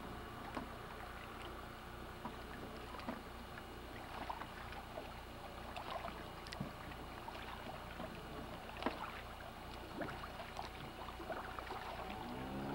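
Scattered faint knocks from a small boat on the water, then near the end a small outboard motor starts, its pitch rising as it catches and settling into a steady run.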